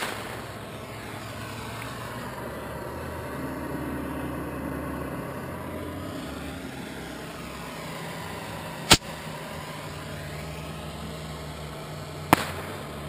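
Three sharp bangs of bottle rockets bursting: one right at the start, one about nine seconds in and one about twelve seconds in. A steady low motor hum runs underneath.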